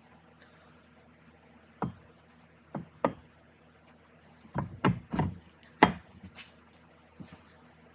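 Metal transfer case parts and tools being handled during reassembly: a series of sharp, short knocks and clicks, about eight in all, most of them bunched together around the middle.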